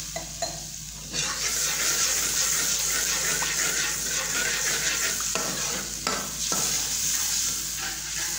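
Red chilli powder frying in oil and a little water in a steel kadhai, sizzling, while a perforated steel slotted spoon stirs it and scrapes and taps against the pan. The sizzle gets louder about a second in.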